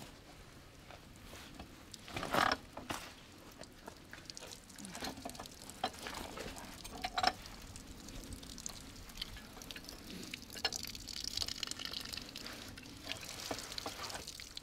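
Water pouring and trickling, with scattered metal clinks and knocks and a louder clank about two seconds in.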